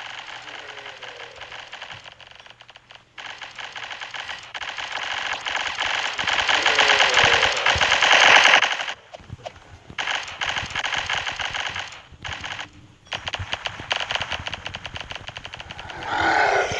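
A fast, continuous rattle of clicks like automatic gunfire, swelling louder over several seconds, then breaking off and resuming in shorter runs.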